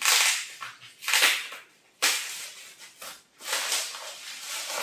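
Plastic wrapping crinkling and rustling in several bursts as a bottle is unwrapped by hand.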